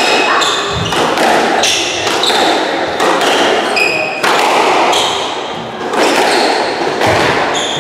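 Squash rally: the ball smacking off rackets and the walls about once a second, with sharp echoing impacts and short high squeaks of rubber-soled court shoes on the wooden floor.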